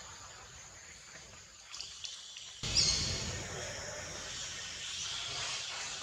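Outdoor forest background noise with a faint bird chirp or two. The background jumps abruptly louder about halfway through.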